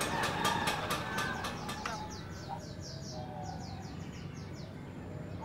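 A caged white-eye singing: a fast series of short, high, falling chirps that starts about two seconds in. Before it, a quick run of sharp clicks fades out.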